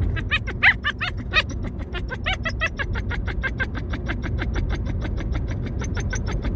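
Bernese Mountain Dog puppy crying inside a zipped mesh travel carrier: a few louder yelping whines, then a fast unbroken run of short high yips, about nine a second. The car's low road rumble runs underneath.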